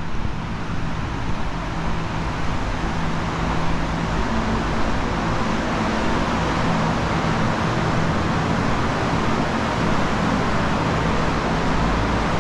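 Steady mechanical hum with an even rushing noise, a little louder from about four seconds in.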